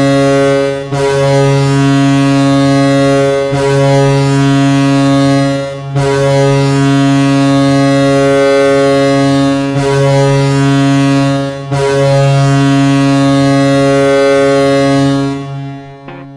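Toronto Maple Leafs goal horn: a loud, deep, ship-style horn sounding in about six long blasts with short breaks between them, fading out near the end.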